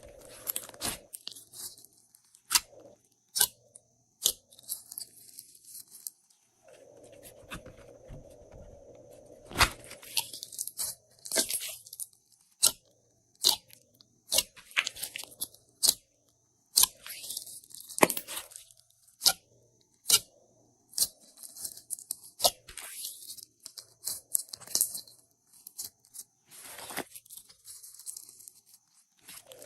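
Glossy slime being squished and mixed by hand: an irregular run of sharp pops and clicks, with crackly sticky stretches between.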